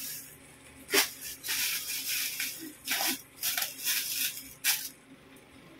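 Crinkling and tearing of a taped plastic parcel wrapper as it is cut and pulled open, with several sharp crackles. It stops about five seconds in.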